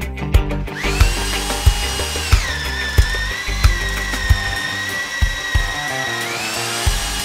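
Bosch GBH 2-26 DFR rotary hammer's motor whining as it spins up about a second in. Its pitch drops and holds lower as the auger bit bores into a wooden post, then rises again near the end as the load comes off. Background music with a steady beat plays throughout.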